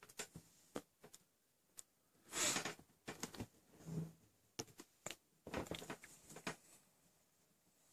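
Faint handling noise from a tablet held in the hands: scattered light clicks, a short rustle about two and a half seconds in, and a cluster of clicks and rustles near six seconds.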